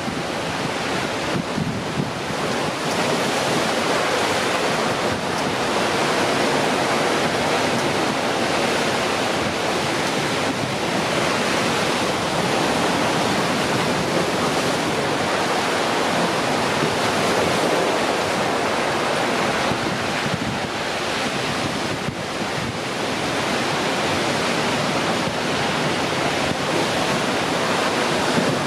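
Steady rushing noise of wind and sea surf, with wind buffeting the microphone.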